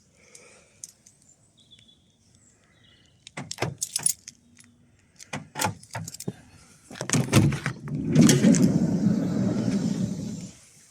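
Keys jangling with a run of sharp clicks, then a louder, rough rumbling noise lasting about three and a half seconds that cuts off abruptly.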